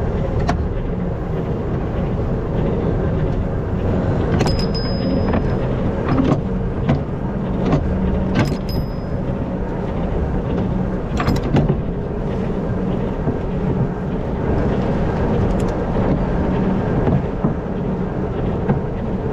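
Tractor engine running steadily on the move, with a few sharp clunks and rattles.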